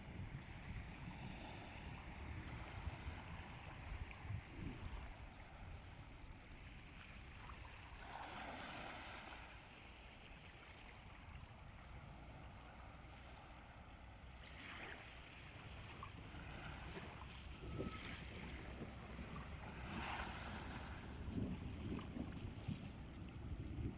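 Small sea waves washing ashore every few seconds, with wind rumbling on the microphone.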